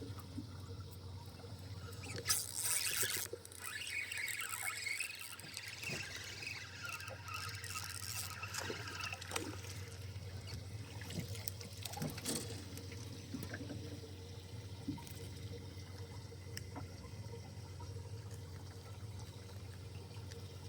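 Water splashing and trickling close by, loudest about two seconds in and busy for several seconds after, with scattered small knocks and a steady low hum underneath.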